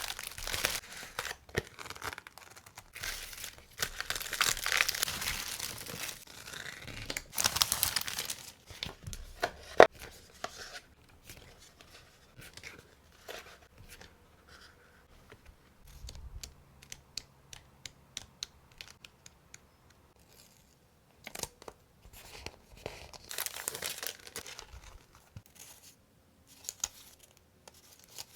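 Packaging torn open and crinkled by hand in stretches of rustling. A sharp click comes about ten seconds in, followed by a run of light taps and clicks, then more rustling near the end.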